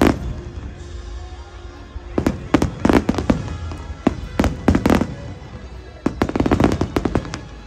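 An aerial fireworks display with shells bursting in rapid volleys of sharp bangs, coming in clusters with short lulls between them.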